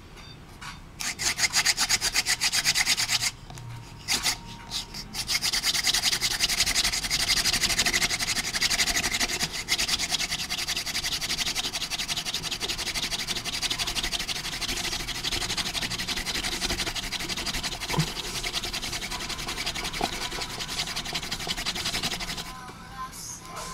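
Hand-drill friction fire: a wooden spindle spun rapidly back and forth between the palms, rubbing in the notch of a willow hearth board. It starts about a second in, breaks off twice for a moment around three to five seconds, then runs on steadily and stops shortly before the end.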